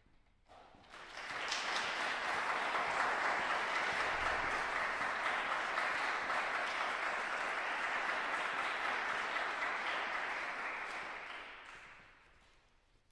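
Audience applauding, starting about a second in, holding steady and dying away near the end.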